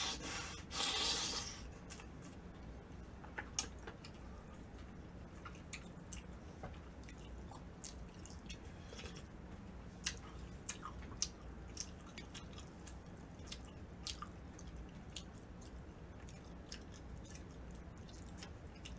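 A person eating kimchi udon and pork cutlet close to the microphone: soft wet chewing with many small mouth clicks. There is a short noisy burst about a second in, just after a bite is taken.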